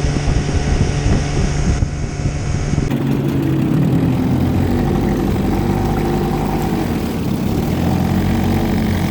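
Boat motor running steadily under way, with abrupt shifts in its tone about two and three seconds in.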